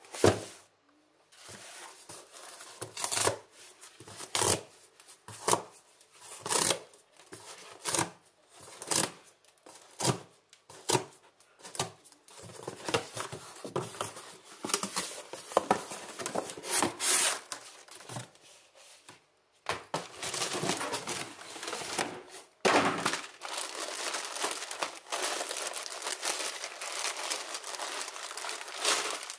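Cardboard shipping box being opened by hand: a run of short, sharp tearing strokes about once a second, then denser rustling of the cardboard. In the last third, a clear plastic bag crinkling steadily as it is handled.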